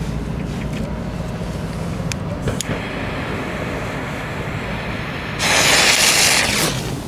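Raudo match cracker's match head struck and flaring, a loud fizzing hiss that lasts just over a second near the end. Low wind and rumble underneath throughout.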